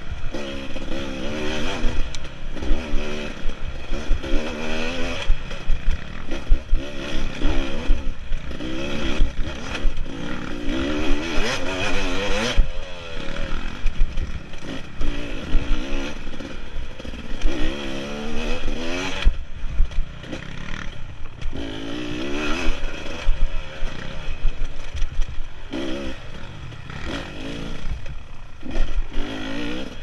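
Off-road dirt bike engine revving up and down over and over as the rider works the throttle along a twisting trail, with short throttle-off dips between pulls. Knocks and rattles from the bike over rough ground run under the engine.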